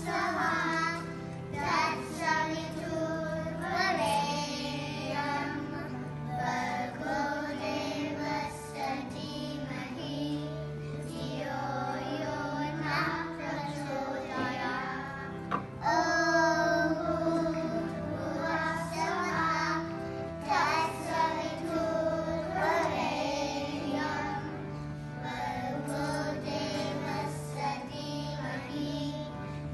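A group of children singing a song together over instrumental accompaniment with held low notes.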